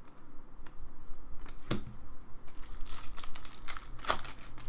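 Foil trading-card pack wrappers crinkling and rustling in the hands as packs are handled and opened. The crackling comes in irregular bursts, with two sharper, louder rustles: one under two seconds in and one near the end.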